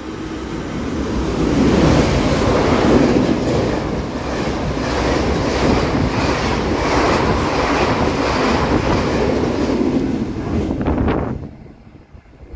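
Locomotive-hauled passenger train running past along the platform: loud wheel-on-rail and rushing air noise that builds as the locomotive arrives, holds while the coaches go by, and drops away suddenly about eleven seconds in as the last coach clears.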